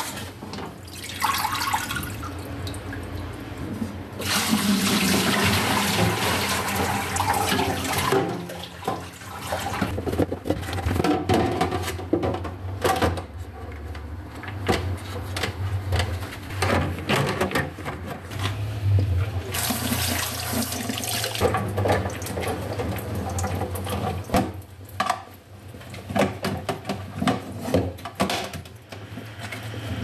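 Kitchen tap running into the sink as vegetables are rinsed, with many clicks and knocks of plastic produce baskets and lids being handled. The water runs hardest about four seconds in for about four seconds, and again briefly near twenty seconds in, over a low steady hum.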